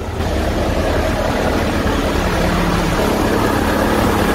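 Heavy truck's diesel engine idling steadily, with an even rushing noise over it that comes up just after the start.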